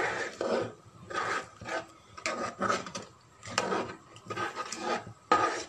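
A spatula scraping and stirring through thick porridge in a coated pan, in repeated strokes about two a second. The porridge has cooked down thick.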